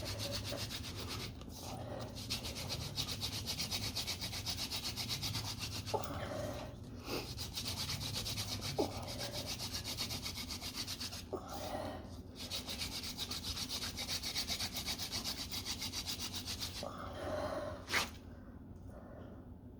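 Hand drill friction fire: a mullein stalk spindle spun back and forth between the palms, rubbing fast against a cottonwood hearth board, with short breaks about every five seconds. The rubbing stops near the end with a single knock, as the coal is established.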